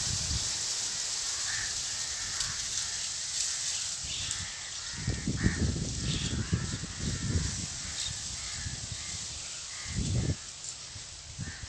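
Dust-storm wind blowing with a steady hiss, gusting hard against the microphone from about five seconds in and again near ten seconds. Crows caw repeatedly through it.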